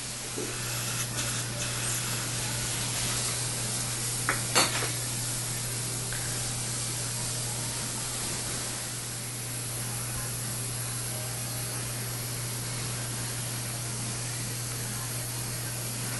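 Steady hiss over a low hum, with a few light clicks of metal microsurgical instruments, the sharpest pair about four and a half seconds in.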